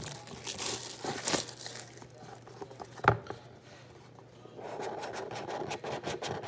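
Plastic shrink wrap crinkling and tearing as it is peeled off a cardboard trading-card box, with a sharp tap about three seconds in. From about four and a half seconds in, cardboard rubs and clicks as the box is opened.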